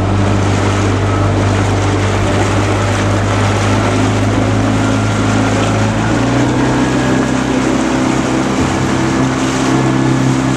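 Boat engine running steadily under way, with water rushing past the hull; the engine's pitch steps up about six seconds in.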